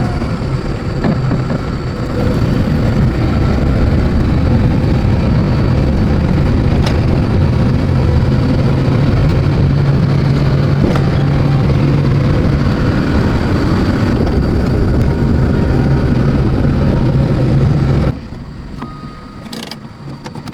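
Car engine running steadily with a low drone; it cuts off abruptly about eighteen seconds in.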